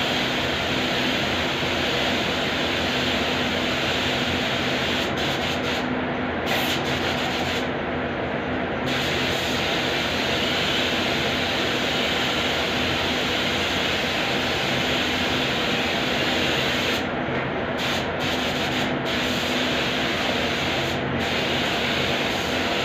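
Paint spray gun hissing steadily as white primer is sprayed, over a steady hum. The high part of the hiss cuts out briefly a few times, around a quarter of the way in and again past the middle.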